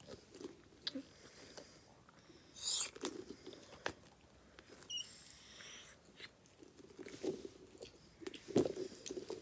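Light handling noises of toys close to the microphone: scattered soft taps and clicks, with a brief hiss about two and a half seconds in.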